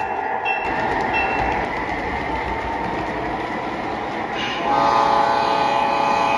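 G scale model freight train rolling past on the track with a steady rolling rattle, a bell dinging a few times in the first second. About 4.7 s in, a model diesel locomotive's horn sounds from its sound system and is held steady, louder than the rolling train.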